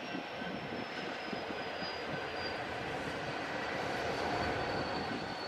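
Coal train rolling along the track: a steady rumble of the freight cars on the rails, with a faint thin high-pitched whine that drifts slowly lower.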